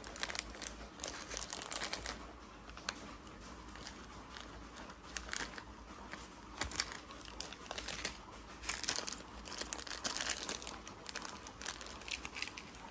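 Irregular rustling and crinkling of plastic and paper as hands handle soaked belongings, with scattered small clicks and taps.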